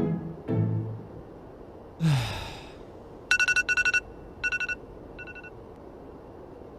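A person's long sigh, falling in pitch, about two seconds in, after a couple of short vocal sounds. It is followed by clipped electronic beeps like a ringtone, in quick groups that thin out from about three to five and a half seconds in.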